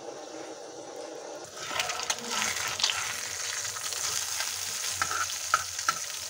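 Egg frying in hot oil on a tawa: loud sizzling that starts about a second and a half in, with a few sharp clicks of a metal spatula against the pan.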